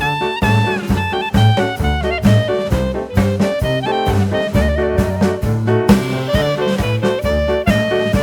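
Upbeat background music in a jazzy swing style with brass and a steady beat.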